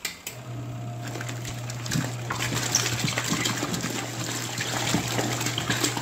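Zeny portable mini twin-tub washing machine in its wash cycle: the wash motor kicks in about a third of a second in and runs with a steady low hum while the pulsator churns soapy water with a shoe in the tub. Splashing runs throughout, with a few light knocks.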